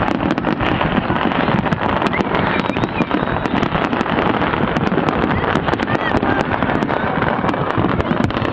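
Fireworks display: a rapid, continuous barrage of bangs and crackling over a steady rumble, with a few brief whistles, heard through a phone's microphone.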